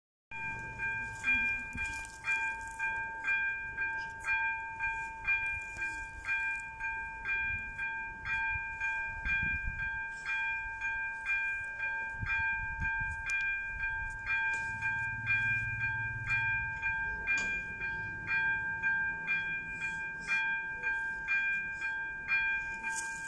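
Electronic level crossing warning bell ringing steadily, about two strikes a second, each strike carrying a chord of several fixed tones: the crossing's warning signal is active.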